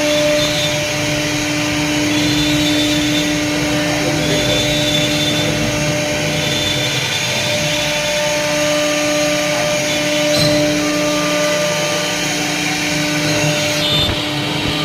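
A 4.5 kW CNC router spindle motor running steadily at high speed. It gives a constant whine over a loud, even rushing noise.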